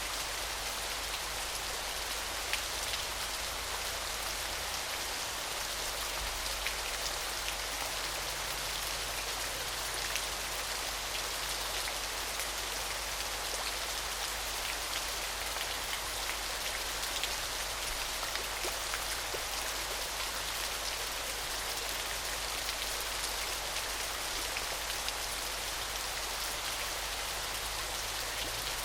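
Small, gentle waterfall splashing steadily: an even, bright hiss of falling water with fine droplet patter and little deep rumble.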